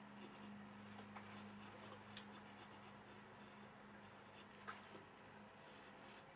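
Faint scratching of a graphite pencil sketching on paper in short light strokes.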